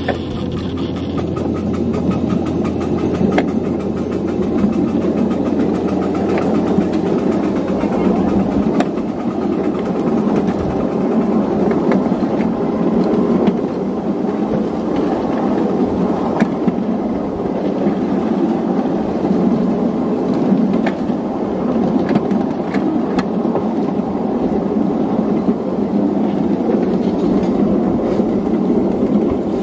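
Steady rumble of a ridable miniature train's cars rolling along the track, with sharp clicks now and then.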